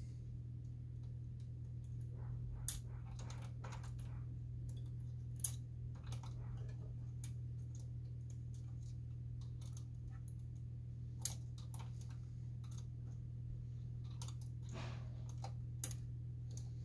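Scattered plastic clicks and taps from parts being handled and unlatched inside an opened inkjet printer, a few sharp clicks several seconds apart with fainter ticks between, over a steady low hum.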